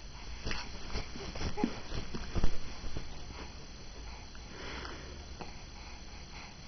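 A young baby's noisy breaths through the nose, with soft thumps and rustles as he kicks and waves on a quilt; the loudest thump comes about two and a half seconds in.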